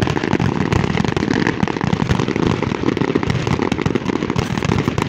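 Aerial fireworks display: shells bursting in quick succession, a dense, unbroken run of bangs and crackle.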